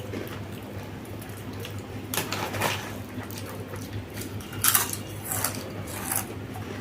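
Spoons clinking now and then against plates and bowls while food is eaten, a handful of light scattered clinks.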